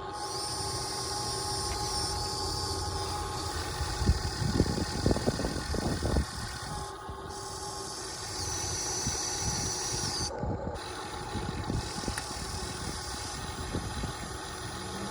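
Radio-controlled model excavator working: a steady motor hum with a high whine that starts and stops several times. A run of knocks and scrapes comes about four to six seconds in.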